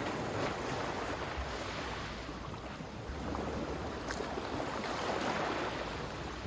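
Sea waves washing in, a steady surf with wind noise, swelling a little about five seconds in.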